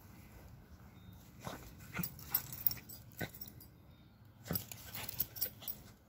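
Small dog making short, broken play noises as it rolls and wriggles in grass, in two bursts, one about a second and a half in and one about four and a half seconds in.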